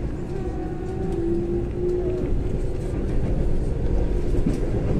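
Keikyu electric train running, heard from inside the car: a low rumble of wheels on rail with a steady motor whine, growing louder as the train gathers speed.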